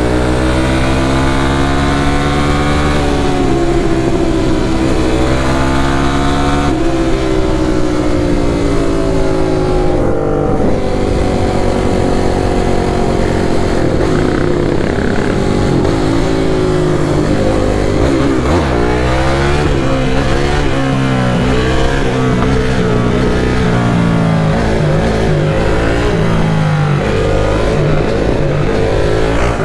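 Sport quad bike's engine accelerating hard through the gears: the pitch climbs, drops at a shift about three seconds in, and climbs again. About seven seconds in the throttle eases and the pitch falls slowly, then it runs at speed with uneven throttle.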